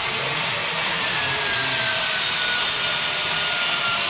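Handheld electric drill running continuously while boring into the wooden frame: a steady whirring with a faint whine that sinks slightly in pitch.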